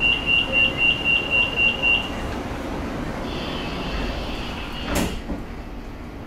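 Door-closing warning of an MRT Blue Line metro train: a quick run of about eight high beeps, some four a second, for two seconds. The sliding doors then run shut and close with a knock about five seconds in.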